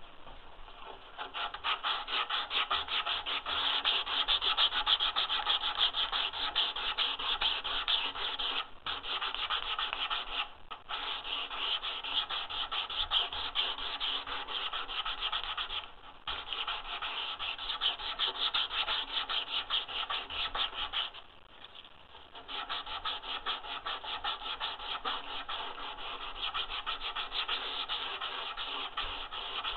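Hand sanding the rounded edge of a wooden board, rubbed rapidly back and forth in a continuous scratchy rasp that stops briefly a few times.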